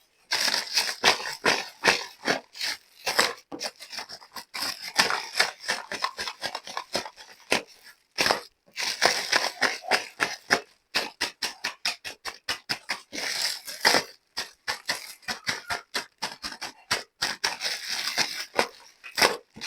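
Small plastic toy pieces and packaging being handled: a dense, irregular run of crinkling, rustling and light clicks, with a brief pause about eight seconds in.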